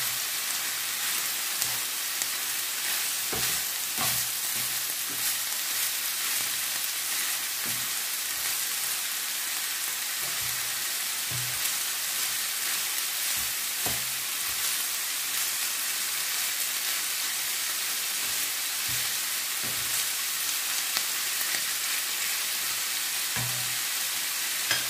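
Minced meat, onion, carrot and green olives sizzling steadily in a non-stick frying pan. A wooden spatula stirring the mixture now and then gives short scrapes and knocks against the pan.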